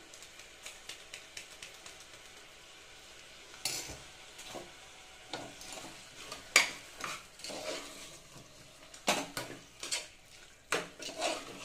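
Steel spoon stirring and scraping chicken and tomatoes in an aluminium pressure cooker, with several knocks of the spoon against the pot, the loudest about six and a half seconds in. Under it is a faint sizzle of the food frying in oil.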